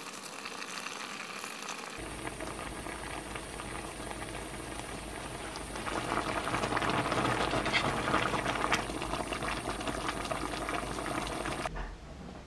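Spicy malatang broth boiling in a stainless steel pot on a gas stove, a steady bubbling and crackling that gets louder about halfway through. Near the end it drops suddenly to a quieter background.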